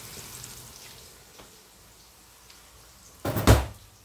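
Sliced onions frying in oil in a pot, a faint crackle and sizzle that dies down to a few scattered ticks. About three seconds in, a loud brief bump lasting about half a second.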